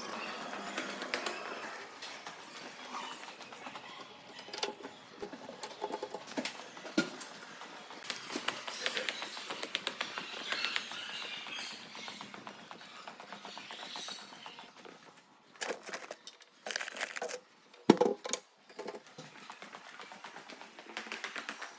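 Quick, irregular light clicks and taps, with a few louder knocks near the end.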